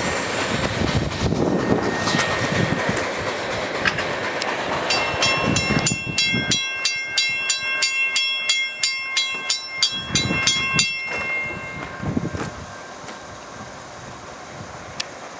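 Freight train of tank cars rolling away, its wheels clacking and rumbling and fading into the distance. From about five seconds in, a railroad crossing bell rings about three strikes a second, then stops several seconds later.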